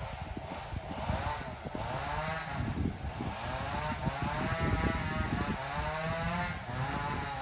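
A small engine running, its pitch rising and falling repeatedly as it revs up and eases off.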